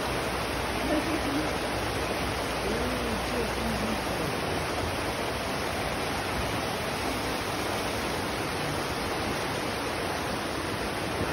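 Steady rush of a shallow mountain river tumbling over boulders in small rapids.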